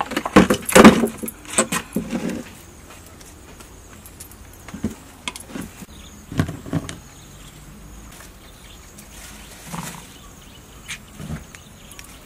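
Knocks and clatter of a stone mortar and pestle being handled on a wooden table as chilies and garlic go into the mortar: a quick run of knocks in the first two seconds, then a few single knocks.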